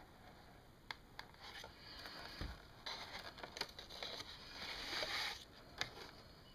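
Faint scraping and rustling of cardboard and paper as an instruction card is slid out of a cardboard box insert, with a few light clicks and taps from handling.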